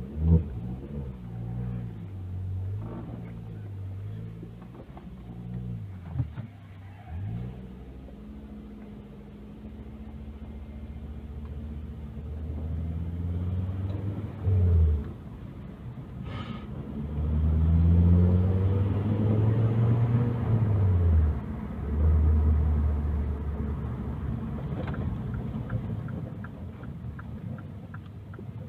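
Ford Focus XR5 Turbo's turbocharged 2.5-litre five-cylinder engine heard from inside the cabin while driving. The engine note climbs as it accelerates, then drops suddenly at gear changes about halfway through and again about three-quarters of the way through.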